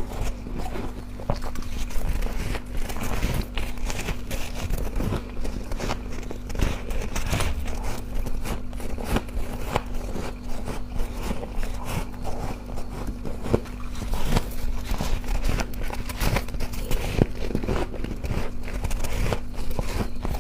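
Close-miked biting and chewing of freezer frost ice, a dense run of crisp crunches and crackles. A steady low hum sits underneath.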